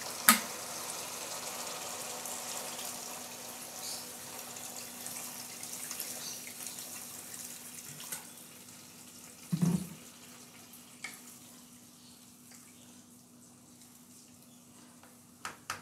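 Water poured into a hot pan of fried beef and masala, to braise the meat until tender; the sizzling hiss dies down over several seconds as the water cools the pan. A single knock about ten seconds in.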